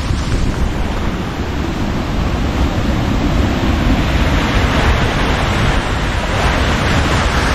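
Swollen stream after heavy rain, rushing over rocks as white water in a steady loud rush that grows louder near the end, with wind buffeting the microphone.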